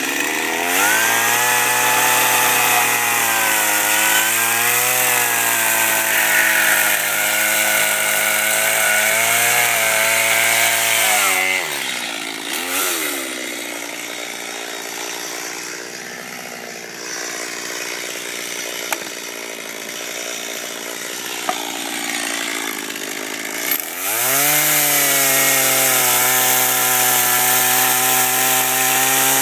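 Stihl two-stroke chainsaw revving up and cutting into fir, its engine pitch dipping and recovering under load. About halfway through it drops back to idle for roughly twelve seconds, then revs up high again near the end.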